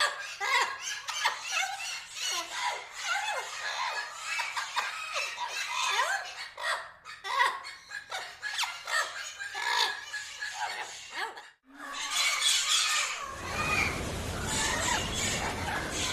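A flock of parrots squawking and chattering, many short overlapping calls sliding up and down in pitch. The sound cuts out briefly near the middle, and after that a loud steady rushing noise runs under the calls.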